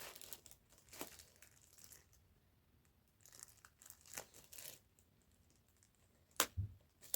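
Faint scattered rustling and crinkling of packaging with a few short clicks as zip ties are cut off a boxed animatronic; one sharper, louder click comes near the end.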